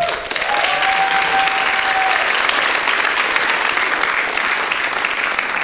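Theatre audience applauding steadily, with one held high note, a whoop or whistle, over it for about a second and a half near the start.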